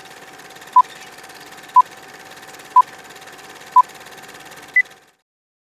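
Film-leader countdown sound effect: a short beep once a second over a steady crackly hiss and a low hum, the last beep higher in pitch. It all cuts off about five seconds in.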